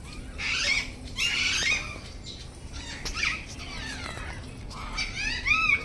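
Birds calling: harsh squawks in the first half, then a quick run of rising-and-falling calls near the end.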